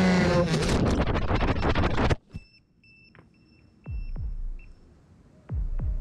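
The motors and propellers of a 5-inch FPV quadcopter whine loudly with shifting pitch, then cut off abruptly about two seconds in as it crashes. After that come short, quiet, high beeps and a few quick falling sweeps.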